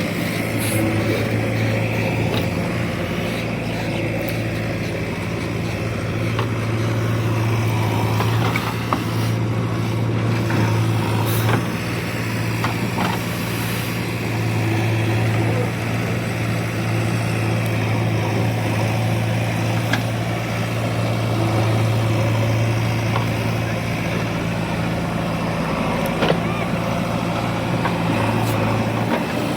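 Heavy diesel machinery engine running steadily with a low hum, its level swelling and easing a few times, with a few light clicks.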